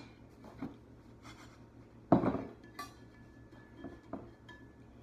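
Cast iron Lodge pots being handled: one louder clunk about two seconds in, with a few light taps and clicks before and after it.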